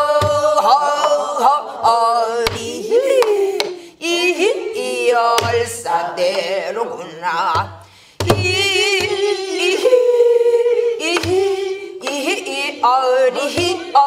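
A woman singing a Namdo japga, a southern Korean folk song, in a strong voice with wide, shaking vibrato. She accompanies herself on a buk barrel drum, whose stick and palm strokes sound at uneven intervals to mark the rhythm.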